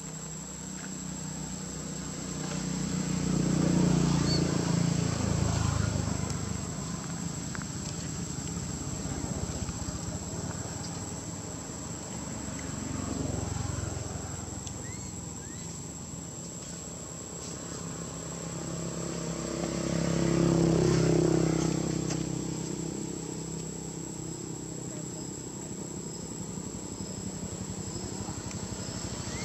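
Outdoor ambience of insects droning on one steady high tone, with a motor vehicle engine passing twice, swelling and fading about 4 seconds in and again about 21 seconds in.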